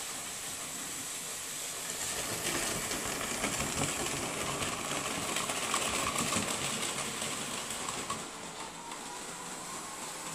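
Märklin H0 model freight train rolling and rattling over metal track, louder while it passes close between about two and eight seconds in.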